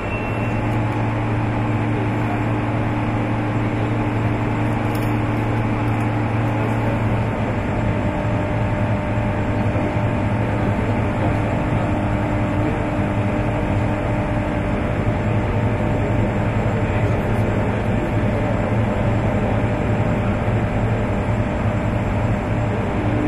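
Steady industrial machinery drone: a low hum with a few fainter steady tones over an even rushing noise. One of the higher tones fades out about halfway through.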